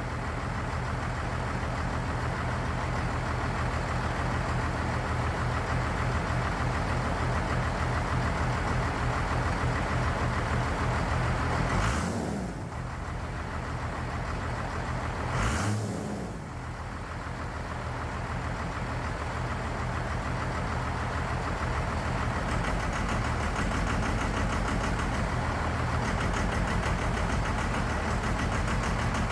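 12-valve Cummins 5.9 L inline-six diesel running roughly on a cheap aftermarket VE injection pump, with two short throttle blips about twelve and fifteen seconds in, each followed by a dip. The rough running is not air in the line: the owner takes it for a faulty pump or wrong pump timing.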